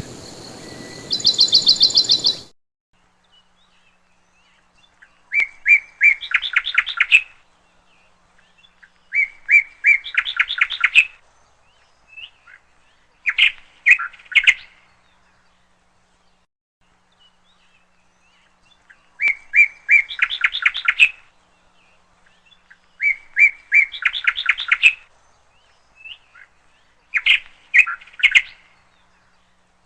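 A songbird singing six short phrases of rapid trilled notes, each lasting one to two seconds, spaced about four seconds apart. A louder sound with a steady hiss and fast trills runs at the start and stops about two seconds in.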